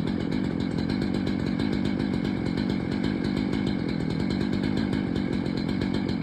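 Stihl chainsaw engine running steadily at a constant pitch and level.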